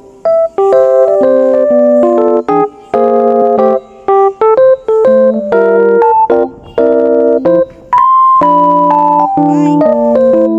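Background music: keyboard chords and notes, with no singing.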